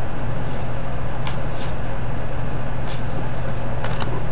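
A steady low hum, with a few short clicks and snaps from hockey trading cards being flipped through by hand.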